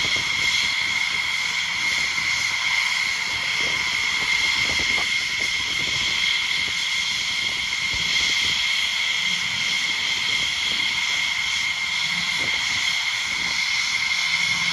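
F-16 Fighting Falcon jet engine noise: a steady rushing roar with a continuous high-pitched whine.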